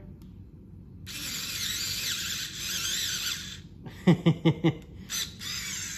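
Hawkeye 3.6 V cordless screwdriver's small motor whirring as it drives a Phillips screw into pressure-treated 4x4, in two runs with a quick series of about five clicks between them. The owner calls it the wrong wood for this little driver.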